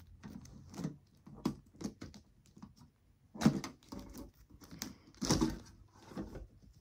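Toy packaging handled by hand: scattered knocks and clicks of a box being turned over and worked at, the loudest about three and a half seconds in.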